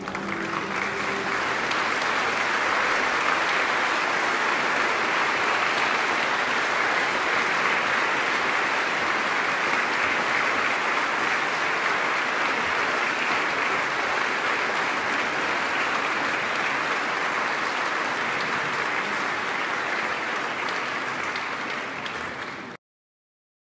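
Sustained applause as the track's outro: a dense, even wash of clapping that holds steady and cuts off abruptly near the end.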